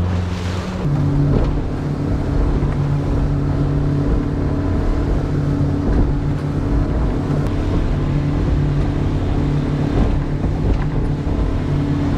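A 90 hp outboard motor driving a small boat at speed. Its pitch steps up about a second in as the throttle opens, then holds steady.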